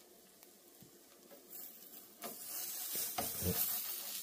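A spatula scraping and sliding under a pancake in a nonstick frying pan, with the butter sizzling louder once the spatula works in about two seconds in, and a light knock against the pan near the end.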